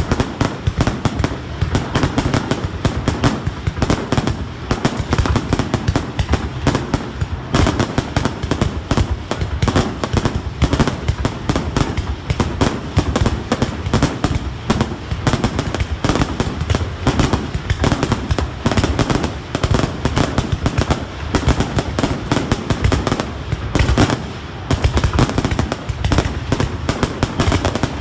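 Fireworks display: a dense, unbroken barrage of bangs and crackling from shells bursting in quick succession.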